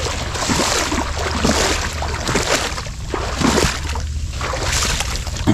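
Water sloshing and splashing irregularly, over a steady low rumble.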